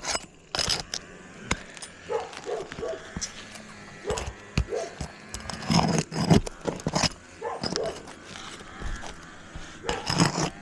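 Hand tools (hammer, putty knife and roof snake) clicking, tapping and scraping against asphalt roof shingles and roofing nails while the nails are worked loose, in a series of short irregular knocks.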